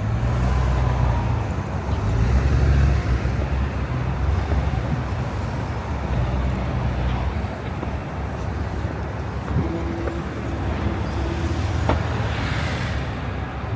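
Street traffic: the low rumble of car and bus engines passing, loudest a couple of seconds in. Near the end come a sharp click and a short hiss.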